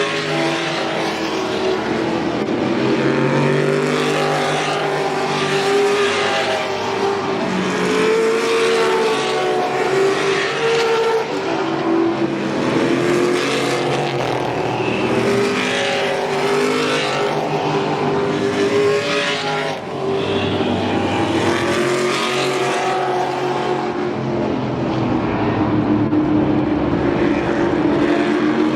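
Historic race car engines at full song, several cars passing in turn, their pitch rising and falling as they accelerate and shift.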